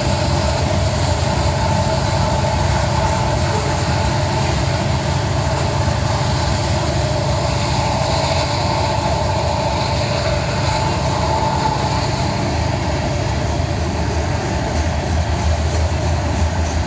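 Loaded freight train of covered hopper cars rolling past at speed: steel wheels running on the rails in a steady, unbroken noise.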